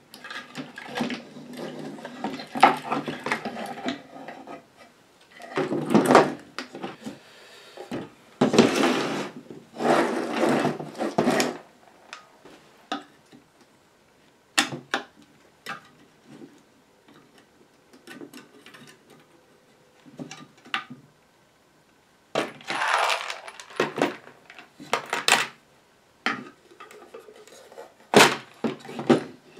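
Bench disassembly of an antique amplifier in a wooden cabinet: the wooden case and panel knock and scrape as they are shifted and worked apart, with sharp clicks and clinks of small metal screws and hardware being handled and set down. Several longer scraping noises come in the first half and again past the middle, with scattered single clicks between.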